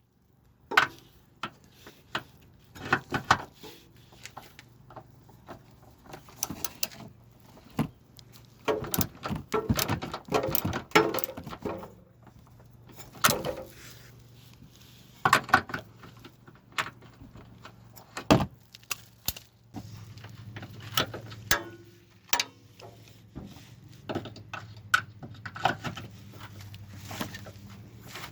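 Irregular metallic clinks, knocks and short rattles of hand tools and exhaust parts being handled during work on a car's exhaust mounting, with a steady low hum in the background that gets louder from about twenty seconds in.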